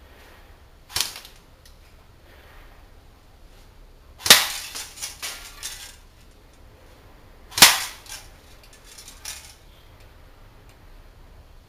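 Cyma CM.048SU battery-powered electric airsoft rifle, an AKMSU replica, firing single sharp shots: one about a second in, a louder one a few seconds later followed by a quick string of quieter clacks, another loud shot past the middle and a faint one near the end.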